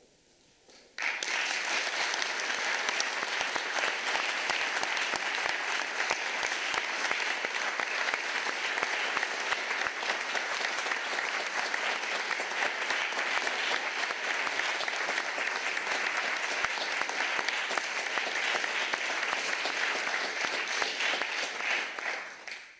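Theatre audience applauding. The clapping breaks out suddenly about a second in, holds steady, and dies away just before the end.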